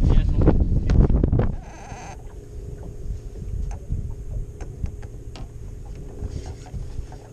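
Wind buffeting the microphone with a loud low rumble that drops away about a second and a half in. It leaves a steady faint hum and scattered light clicks.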